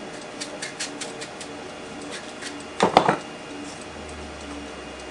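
Pieces of a wooden core box handled on a bench: a run of light clicks, then a short, louder clatter of wood knocking together about three seconds in. A wind-up clock ticks underneath.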